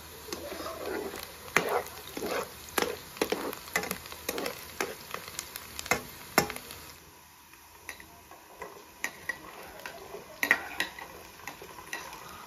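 Metal ladle stirring soaked beans in a large pot, with sharp clinks and scrapes of the ladle against the pot's sides. After a quieter pause about seven seconds in, a few more clinks of the ladle against a china plate and pot as food is spooned in near the end.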